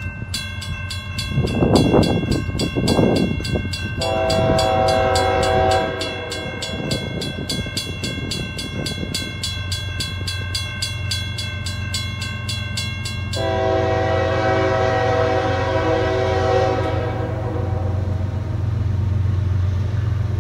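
Grade-crossing warning bells ringing fast and steadily: a General Signals electronic bell and a WCH mechanical bell, the mechanical one sounding rather weak. An approaching CSX freight locomotive's horn sounds briefly about four seconds in, then again as a long blast from about thirteen seconds in, after which the ringing is no longer heard, over a low steady hum.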